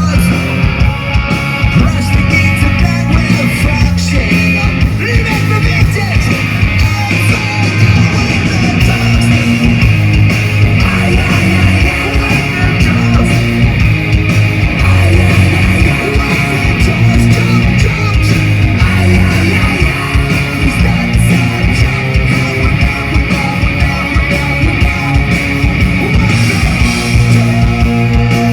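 Punk rock band playing live and loud: distorted electric guitars, bass and a driving drum beat.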